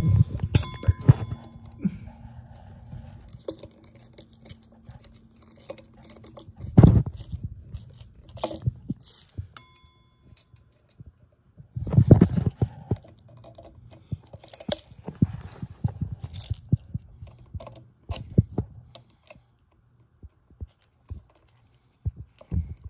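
Screwdriver tightening screws on a ceiling fan's metal motor housing and downrod collar: irregular small metal clicks, scrapes and rattles, with two louder knocks about seven and twelve seconds in.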